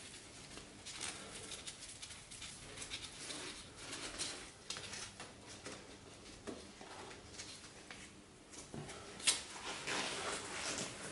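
Small metallic clicks and scrapes as a gloved hand works the clamping lever of a cast-iron tilting table, with one sharper click about nine seconds in.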